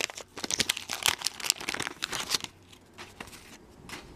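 Wax paper wrapper of a 1990 Fleer baseball card pack crinkling and tearing as it is ripped open, dense crackling that dies down after about two and a half seconds, leaving a few faint clicks.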